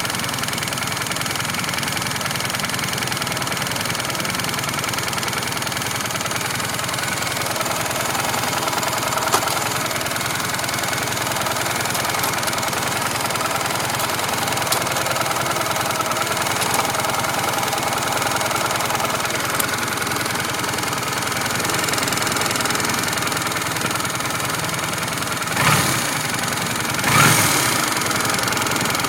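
Honda Shadow V-twin motorcycle engine idling with a ticking noise, which comes on after the engine has been ridden for a while and is hot. Two short louder swells near the end.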